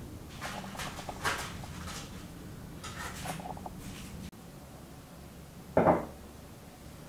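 Baking parchment crinkling and scissors snipping as the paper is trimmed inside a metal baking tray, with a few sharp clicks. About six seconds in, one short loud thump.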